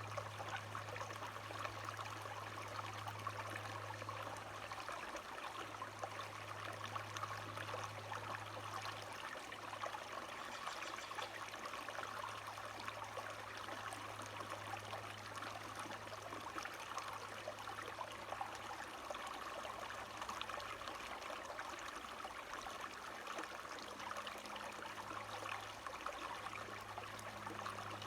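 Running water of a small stream, a steady trickling rush. A low steady hum sits underneath it and cuts out briefly a few times.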